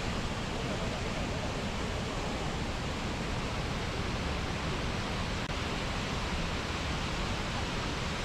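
A waterfall rushing: a steady, unbroken noise with no let-up.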